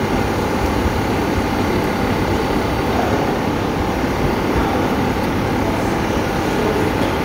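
Steady running noise from the engine bay of a 2020 Ford Kuga plug-in hybrid with its 2.5-litre petrol engine running: an even, fan-like rush with a faint steady whine over it.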